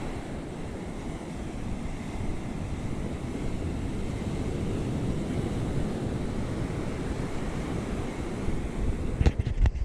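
Ocean surf washing on the beach, mixed with wind buffeting the microphone. A few louder knocks and a low rumble from wind gusts or handling come near the end.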